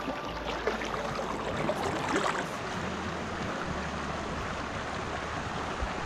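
Small mountain creek running and rippling over rocks in a shallow riffle, a steady rushing wash of water.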